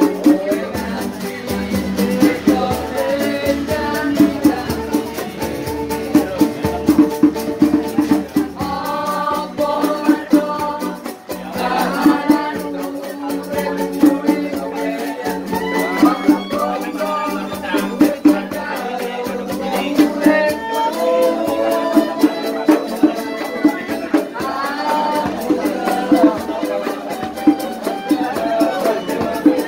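Street musicians playing live: a singer's voice over held instrumental accompaniment, with a steady shaker rattling throughout.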